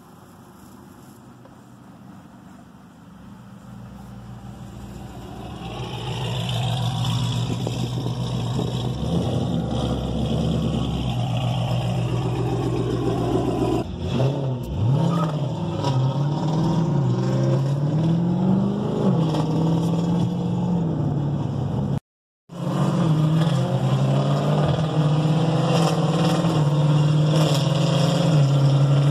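6.4-litre 392 HEMI V8 engines driving at low speed, heard from inside the car. The sound swells over the first few seconds, then the engine note steps up and down as it changes gears. There is a brief dropout about three-quarters of the way through.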